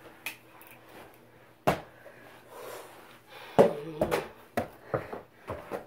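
Scattered knocks and thumps from play on a hardwood floor in a small, echoing room: one sharp knock about two seconds in, then a quick run of them in the last two seconds.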